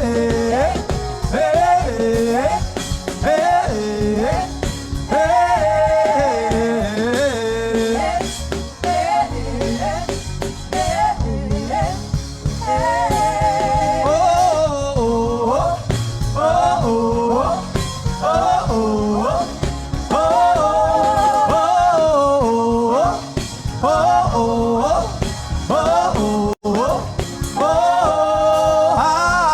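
Gospel worship music: a wordless melody sung with wavering vibrato and long gliding notes over a steady instrumental backing. The sound cuts out for an instant near the end.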